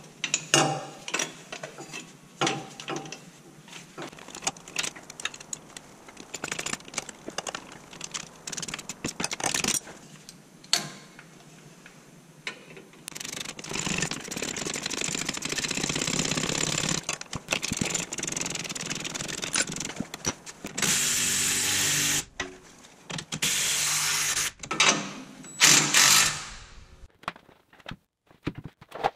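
Clinks and knocks of hand work on a steel suspension bracket. From about halfway in, a cordless impact wrench runs nuts down onto the bracket bolts in several long bursts, the first lasting about seven seconds.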